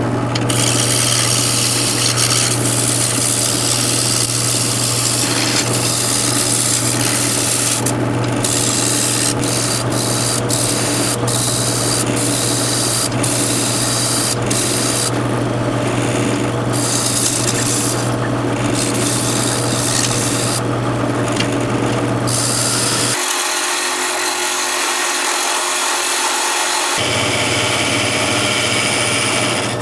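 Wood lathe running with a steady motor hum while a turning tool cuts the spinning maple blank, giving a rough scraping hiss of shavings coming off that pauses briefly now and then. For a few seconds after about three-quarters of the way through, the motor hum drops out and only the cutting hiss remains.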